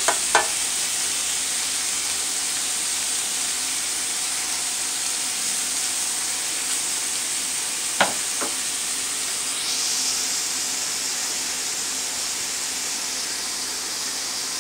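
Shrimp sizzling steadily in oil in a stainless steel pan, with a few sharp taps from stirring: two just after the start and two about eight seconds in.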